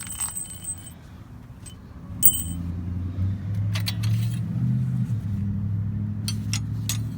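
Small metal brake-caliper parts (retaining pins, rods and pad cover) clinking and ringing as they are handled, with the loudest clink about two seconds in and a few lighter clicks later. From about two seconds in, a motor vehicle's engine runs steadily underneath.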